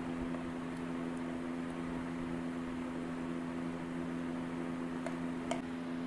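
Handling of a glass food container and its snap-lock plastic lid: a few light ticks, then two sharper clicks near the end, the second the loudest. A steady low hum runs underneath throughout.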